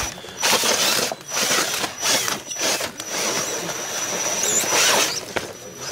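Radio-controlled rock crawler's electric motor and geared drivetrain whining in several short bursts with brief pauses as the throttle is worked, then a longer run of about two seconds before it stops near the end, as the crawler climbs over rock.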